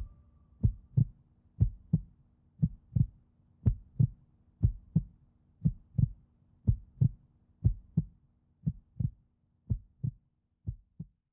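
Heartbeat sound effect: paired low thumps about once a second, fading and stopping just before the end, over a faint steady low hum.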